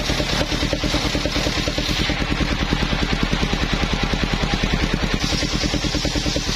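The engine of a mobile circular sawmill running steadily with an even, rapid pulse. A hiss over the engine dies down about two seconds in and comes back about five seconds in.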